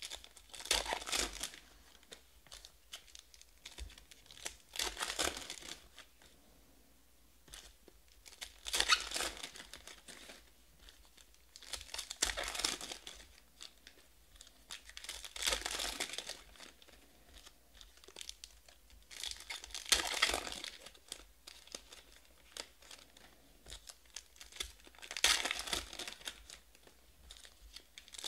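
Foil trading-card packs torn open and pulled apart by hand, one after another. There are about seven bursts of tearing and rustling foil, one every three to four seconds, with lighter handling of the cards between them.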